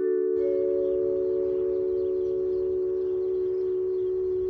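A held chord of steady, chime-like ringing tones, added in editing over the scene transition. A higher tone joins about half a second in, and the chord then holds unchanged.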